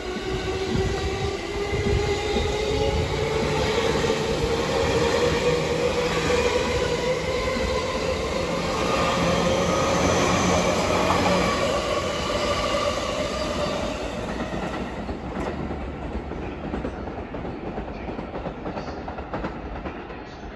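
JR East E231 series electric train pulling out and accelerating past, its traction motors whining in a tone that climbs steadily in pitch while the wheels clatter over the rail joints. The sound fades over the last few seconds as the train draws away.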